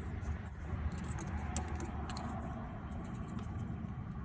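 Light clicks and rattles of hands working the electrical plug back onto a 2013 Dodge Charger's A/C compressor, over a steady low hum.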